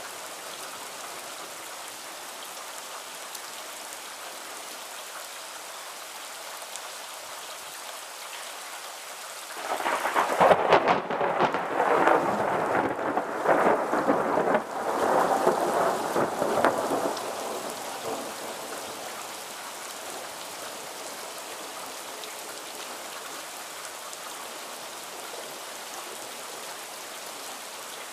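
Steady rain falling. About ten seconds in, thunder breaks with a sharp crackle and rumbles loudly in rolling waves for about eight seconds before fading back under the rain.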